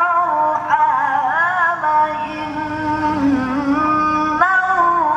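Man's voice reciting the Quran in melodic tilawah style, drawing out long, held notes with wavering ornaments on the vowels, sung into a handheld microphone. There is a short break and a new phrase about four and a half seconds in.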